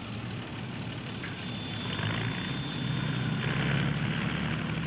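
Diesel engine of a Caterpillar pipeline machine running steadily, growing louder about two seconds in, with a faint steady high whine.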